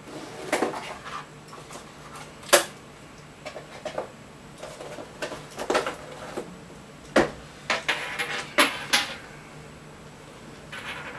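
Packaging being handled during an unboxing: the box, leaflet and plastic parts are moved about, making scattered sharp knocks and clicks and short rustles.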